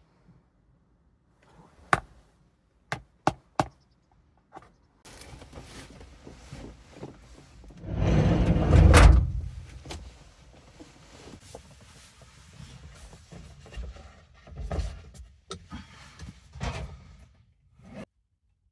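Scattered sharp clicks and knocks, a louder rushing swell about eight seconds in, and a few dull thumps near the end.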